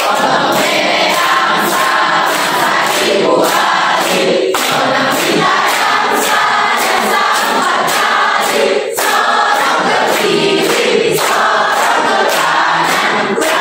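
A large group of young men and women singing a song together in unison, with a steady hand-clapped beat.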